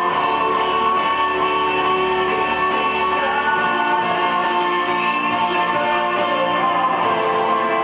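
Background music with guitar and held notes.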